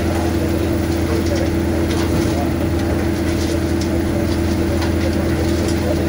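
Komatsu SK820 skid steer's diesel engine running steadily at working speed while its hydraulics spin a VTN rotating screening bucket, sifting soil out of the drum. Faint irregular ticking rides over the steady engine hum.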